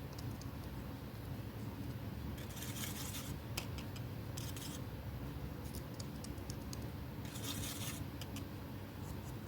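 Paper being handled and cut by hand: bursts of rustling and scratching about two and a half seconds in, again briefly near four and a half seconds, and again near seven and a half seconds, with small clicks in between, over a steady low hum.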